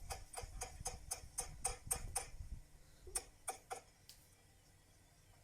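A quick, even series of sharp ticking clicks, about five a second, with a low rumble under them. The clicks stop, then come back a few more times more slowly before dying out.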